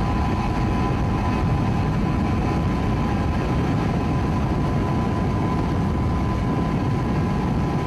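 Steady rushing noise of a boat running at speed: the engine and wind on the microphone, unchanging throughout, with a faint steady whine.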